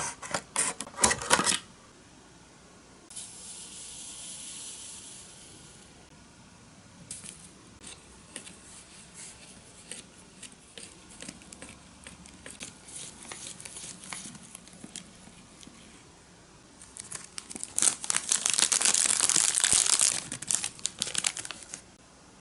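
Scissors snipping through a thin clear plastic tray in a quick run of sharp clicks, then a few seconds of soft hiss. A plastic spoon then taps and scrapes while stirring batter in the plastic tray, and near the end a thin plastic bag is handled, giving a few seconds of loud crinkling.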